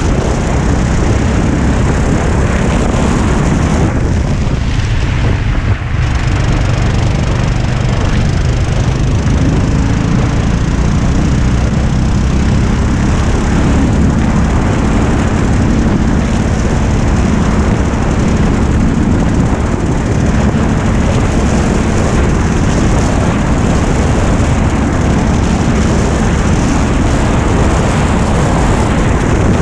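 Go-kart's small engine running hard, heard from on board, with wind rush on the microphone. The engine note drops away briefly about four to six seconds in, then picks up again.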